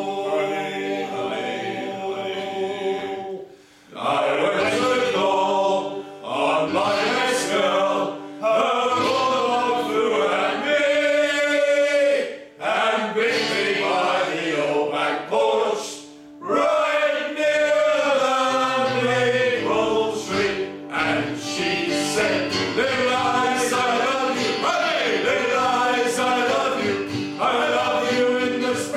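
A mixed group of men and women singing a song together, with an acoustic guitar strummed along, breaking off briefly between lines a few times.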